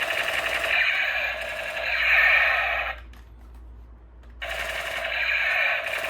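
A toy gun's electronic firing sound effect: a thin, rapid rattling burst about three seconds long that stops about three seconds in, then a second burst starting a second and a half later.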